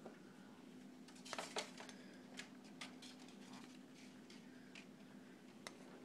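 Faint, steady low hum with scattered small clicks and ticks; the loudest few come together about a second and a half in.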